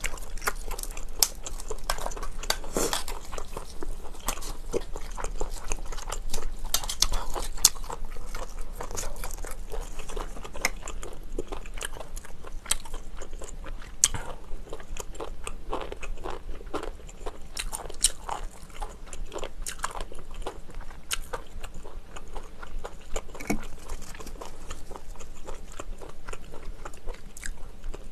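Close-miked eating sounds: chewing shellfish eaten from the shell, with many short wet clicks and smacks throughout.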